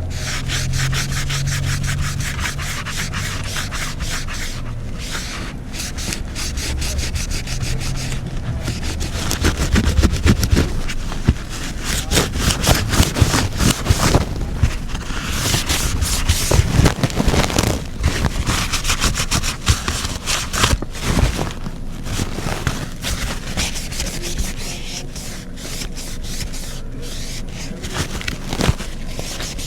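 Rapid scrubbing strokes against an iPad as it is deep-cleaned. The strokes are busier and louder in the middle.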